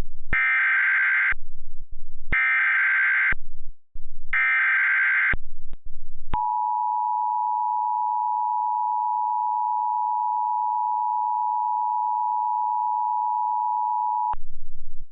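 Emergency Alert System tones: three one-second bursts of shrill warbling SAME header data, a second apart, then the steady two-note EAS attention signal, held for about eight seconds before it cuts off. A low buzz sits in the gaps between the bursts. Together the tones signal an emergency alert, here a tornado warning.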